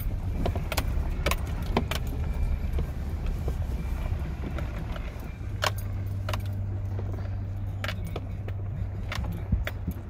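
Pickup truck driving slowly over a dirt track, heard from inside the cab: a low engine and tyre rumble with irregular clicks and rattles throughout. About halfway through the low hum becomes steadier and stronger.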